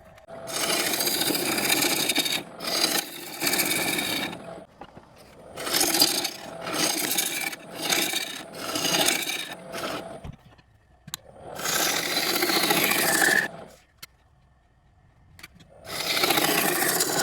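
Bowl gouge cutting into a sugar maple bowl blank spinning on a wood lathe, hollowing out the inside. The rough, hissing cutting comes in several stretches of one to three seconds, broken by short quiet gaps.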